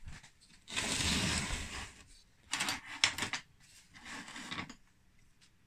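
An RC bulldozer's chain track with printed track pads clattering and rattling as it is handled and shifted on a workbench, in three short spells with a few sharp clicks in the middle one.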